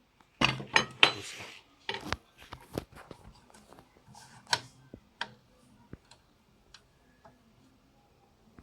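Hard parts being handled and set down: a run of sharp clicks, clinks and knocks, close together for the first two seconds, then sparser taps with short gaps.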